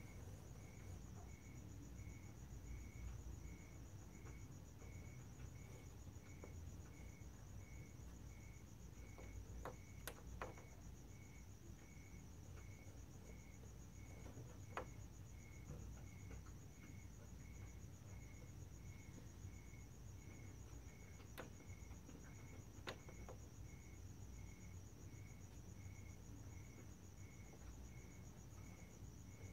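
Faint night insects calling: a continuous high trill and a separate chirp repeating about twice a second, with a few scattered soft clicks.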